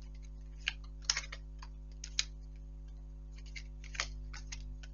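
Tarot cards being handled and laid down on a table: scattered light clicks and soft snaps of card stock, some in quick little clusters, over a faint steady hum.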